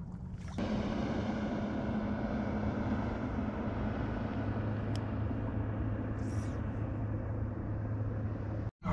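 Boat motor running steadily with a low, even hum. It starts abruptly about half a second in, and a single sharp click comes near the middle.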